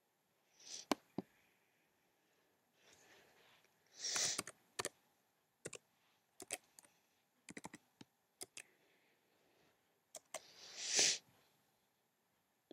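Scattered light clicks and taps, typical of a laptop's keys or trackpad being pressed to wake it from sleep, with a few short hissing rustles about a second in, around four seconds and near the end.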